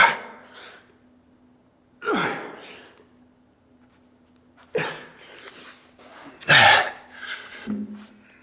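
A man's sharp, forceful grunting exhalations of effort, four of them about two seconds apart, the last longest and loudest. He is straining through plank-position tricep extensions taken to failure.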